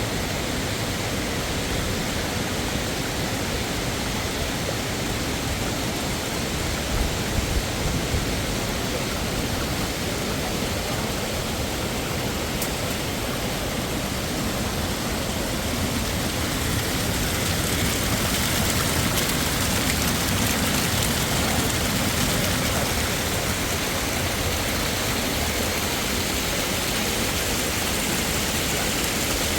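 Waterfall's rushing water, a steady dense roar of falling water that swells a little past the middle. A few brief low bumps sound about seven seconds in.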